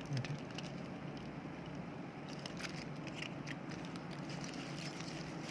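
Faint scattered clicks and crinkles from small battery parts being handled, over a steady low hum.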